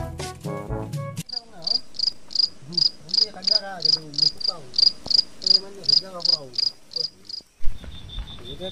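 Crickets chirping at night in a steady pulse of about three chirps a second, after a second of music at the start. Near the end the sound cuts off abruptly and a different, faster cricket trill takes over.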